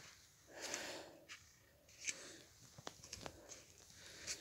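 Faint handling noises: soft rustling of plastic packaging and several light clicks and taps as merchandise is picked up and set down.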